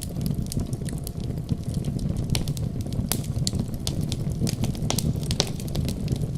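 Wood fire crackling, with frequent sharp, irregular pops over a low, steady rumble.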